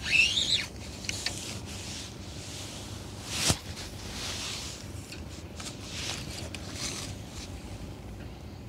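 Handling noises from feeder fishing tackle: rustling and rubbing, with a few short high chirps at the start. About three and a half seconds in comes one sharp swish that quickly swells and cuts off, the loudest sound here.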